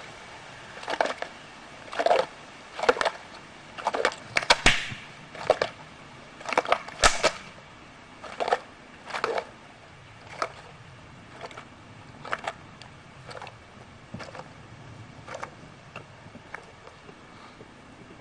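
An animal chewing a piece of wood, with sharp crunches about once a second, loud at first and growing fainter.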